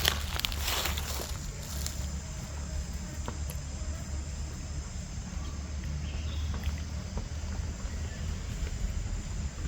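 Steady low rumble with crackling or rustling in the first two seconds and a faint high insect buzz.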